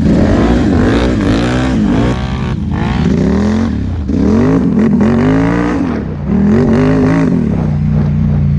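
ATV engine under way, its pitch rising and falling repeatedly as the throttle is worked, with short off-throttle dips about two, four and six seconds in.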